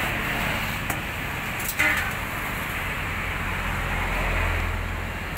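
A large knife chopping into a skipjack tuna on a wooden log gives a couple of short knocks, the loudest about two seconds in. Under it runs steady engine-like background noise, with a low rumble that swells near the end.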